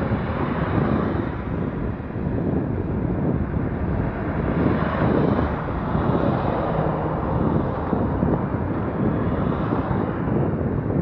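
Wind buffeting the microphone of a camera moving along a road, over a steady road rumble; the rush swells briefly around the middle.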